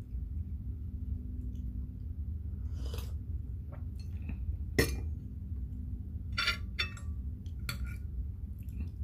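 Tableware clinking: a ceramic teacup set down on its saucer and a fork tapping and scraping a plate, five or six sharp clinks with the loudest about five seconds in. A steady low hum runs underneath.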